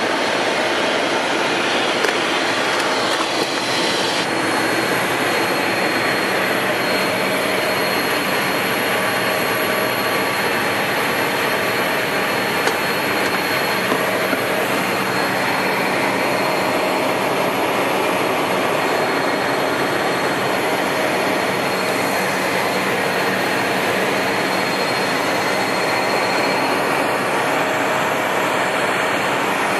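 Steady cockpit noise of an Embraer Phenom 100 in flight: a constant rush of airflow over the airframe mixed with the hum of its twin Pratt & Whitney PW617F turbofans, with a thin high whine coming in about four seconds in.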